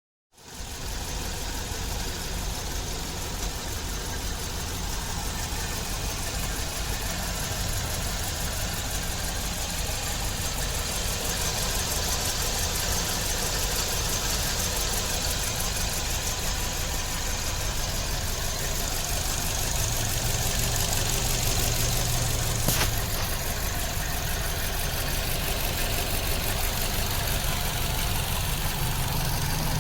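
A 2006 Kia Rio's 1.6-litre four-cylinder engine idling steadily, the car having a random misfire. A single sharp click sounds about 23 seconds in.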